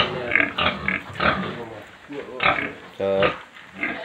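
Young boar grunting repeatedly, with one longer pitched squeal about three seconds in, as it resists being pulled on a rope out of its pen.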